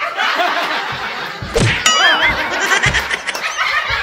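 A man and a woman laughing hard together, with a high, wavering squeal about two seconds in.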